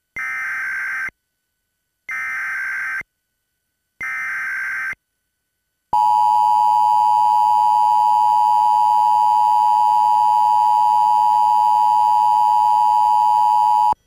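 Emergency Alert System test tones: three one-second bursts of SAME digital header data, each starting about two seconds after the last, then the louder steady two-tone attention signal, which starts about six seconds in and lasts about eight seconds.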